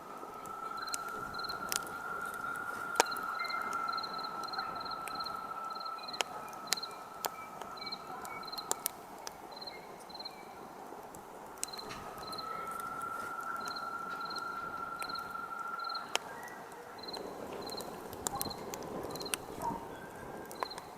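Campfire crackling with frequent sharp pops over a low steady rush of flame, while a cricket chirps in a repeated high pulse. A thin steady whistle sounds for several seconds, stops, and returns about twelve seconds in for a few seconds more.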